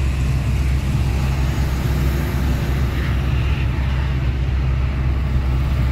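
Truck's engine and road noise while driving: a steady low drone with tyre and wind hiss.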